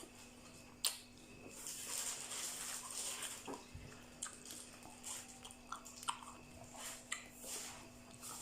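A person chewing a mouthful of spicy seafood salad, with irregular soft wet chewing noises and small sharp clicks and smacks.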